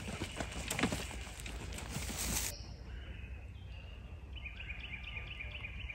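Rustling with light knocks, as of movement through woodland undergrowth, cuts off abruptly about halfway through to quieter outdoor air. Over the last second and a half a bird calls in a quick run of short repeated chirps.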